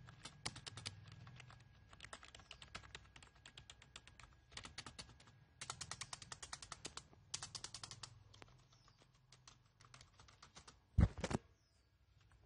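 Typing on a budget Ensoho wireless keyboard: runs of rapid key clicks, fastest and loudest about halfway through. A couple of loud thumps follow near the end.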